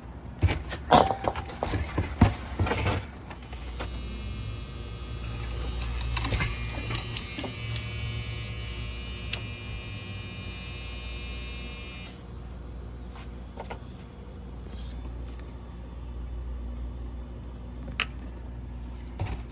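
A freshly replaced refrigerator compressor hums steadily while the system is charged with R-134a refrigerant. A few clicks and knocks from the gauge and hose fittings sound in the first three seconds, then a hiss of gas flowing in runs from about four seconds and cuts off sharply about twelve seconds in.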